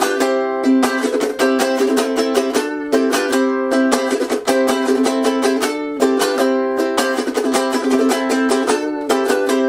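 Ukulele played with fast, aggressive sixteenth-note 'machine-gun picking', driving a rock riff on chords that repeats about every three seconds.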